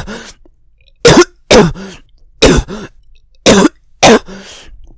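A person coughing: a run of about six short, loud coughs, some coming in pairs, from someone with a cold.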